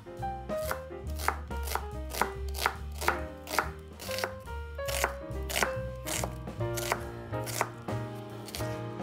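Knife chopping on a cutting board in steady strokes about two a second, over background music.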